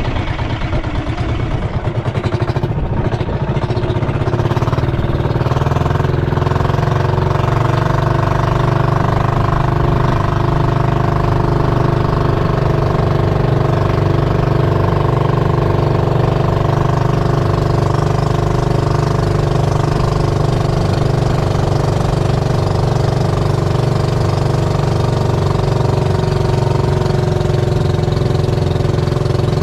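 Motorized bangka's inboard engine running steadily under way, with an even drone.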